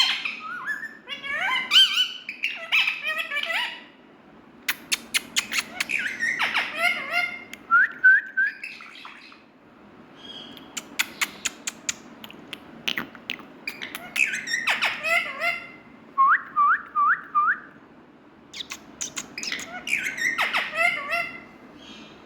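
Pet Indian ringneck parakeet calling in bouts of squawks and chirps, with quick clicking notes mixed in. There are short pauses between the bouts and a run of four quick rising chirps about three-quarters of the way through.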